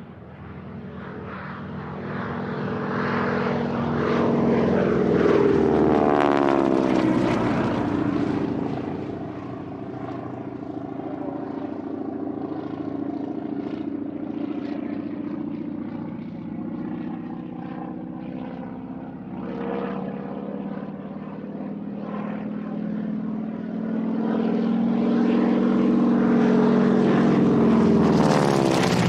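Light propeller plane's engine flying past twice, growing louder and then dropping in pitch as it goes by, about six seconds in and again near the end.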